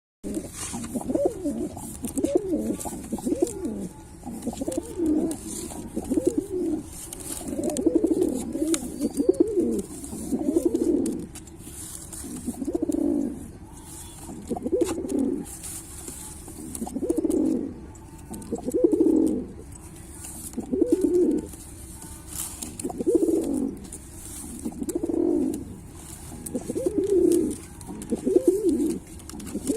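Pilkha pigeon cooing over and over in low, rolling coo phrases that come about every two seconds.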